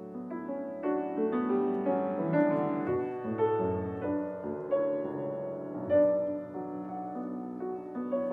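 Background piano music, with held notes and chords that change about every half second.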